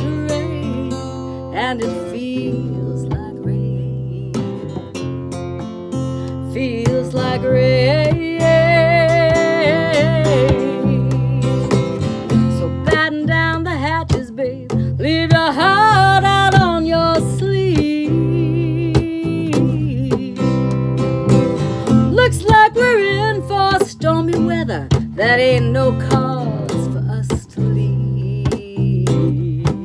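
Live acoustic music: a steel-string dreadnought acoustic guitar playing a lead line over a four-string bass, with a voice singing at times.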